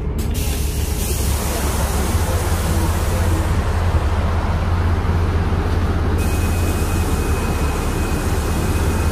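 Inside a NefAZ 5299 city bus under way: a steady low engine drone with loud road and tyre rush. A thin, steady high whine joins about six seconds in.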